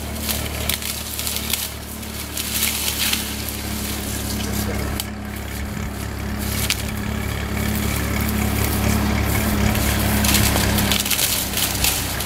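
Dry, drought-withered sugar cane leaves and stalks crackling and rustling as a man pushes into them and handles them. Underneath is a steady low hum, which drops away near the end.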